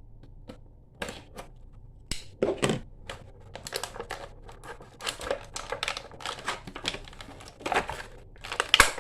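Stiff plastic action-figure packaging being handled and pulled apart, crinkling and clicking irregularly as a figure's parts are worked loose.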